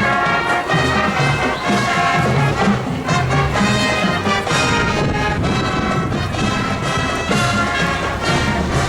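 High school marching band playing a tune on brass and percussion: horns holding and changing chords over a bass line and drums.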